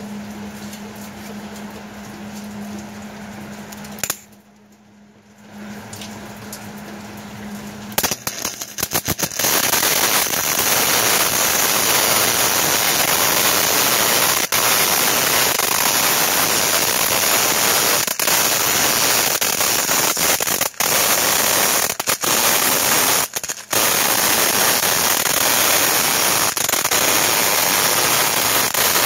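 Welding arc of a wire-feed (MIG-type) welder running a bead on steel. A steady low hum comes first. About eight seconds in the arc starts with a few short stutters, then crackles steadily, with a few brief breaks where the bead is paused.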